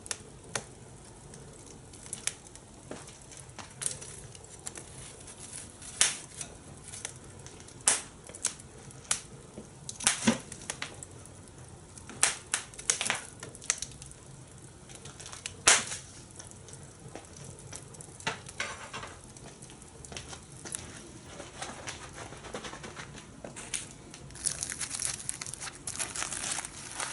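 Fire in a fire pit crackling, with sharp irregular pops every second or two over a low steady hiss. Near the end a denser crinkling rustle sets in.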